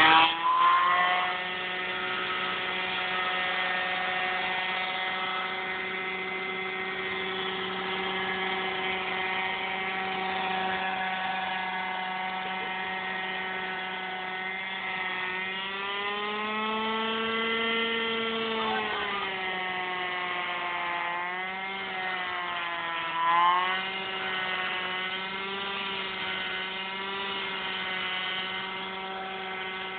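Piaggio NRG 50cc two-stroke scooter engine held at high revs during a burnout, the rear wheel spinning against the ground. It keeps a steady high note after a loud opening rev, swells up and back down in pitch about halfway through, and wavers twice later with one short louder burst.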